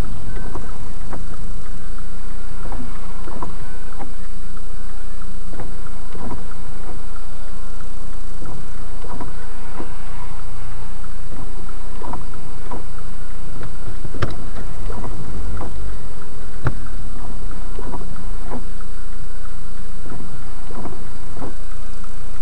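Car cabin noise picked up by a dashcam's built-in microphone: a steady low engine and road hum, loud and overloaded, with light, irregular ticks about once a second.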